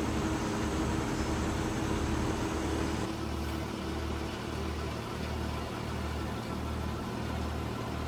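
Cutter 100 wheat thresher running steadily while threshing wheat as sheaves are fed into it, a machine hum with a low rhythmic throb a little under twice a second.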